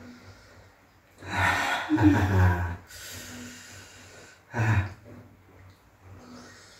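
A person gasping and huffing loudly from the burn of very spicy instant cup noodles. A long noisy gasp starts about a second in, a softer hiss of breath follows, and a short sharp breath comes just before the five-second mark.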